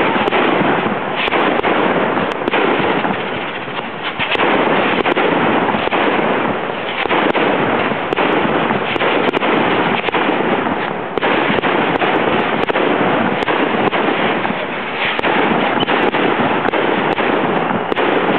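Aerial fireworks bursting overhead: a near-continuous run of bangs and crackling, with many sharp cracks layered over one another and only brief lulls.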